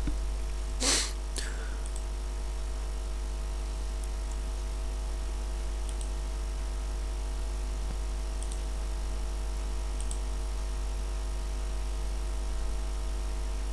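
Computer mouse clicks, faint and spread out, with one louder short burst of noise about a second in, over a steady electrical hum from the recording setup.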